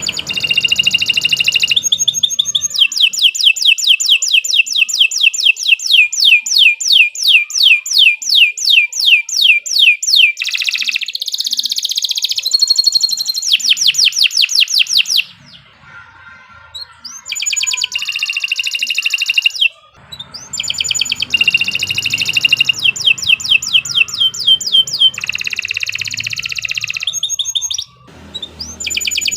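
Domestic canary singing a long, loud song made of rolled trills and runs of rapidly repeated high notes, with brief pauses between phrases.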